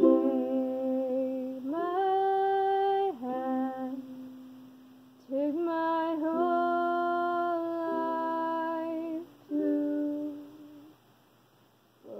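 A woman humming a slow melody in long, steady held notes, with short breaks between phrases; it stops near the end.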